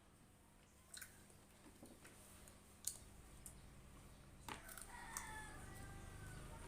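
Faint, sparse clicks and taps of someone eating, with the sharpest click about three seconds in. A faint, wavering pitched sound comes in near the end.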